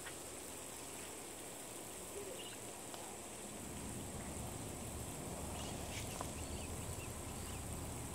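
Outdoor ambience: a steady high insect buzz with a few faint bird chirps a little past halfway. A low rumble sets in about halfway.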